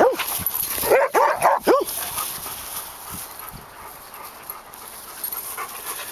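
Puppies barking in play: a quick run of about five short, high barks, each rising and falling in pitch, in the first two seconds.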